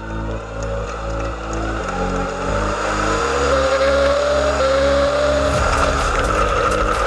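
Stadium Super Truck's V8 engine heard from inside the cab during a race run, its pitch rising steadily for a couple of seconds in the middle as the truck accelerates. Background music plays underneath.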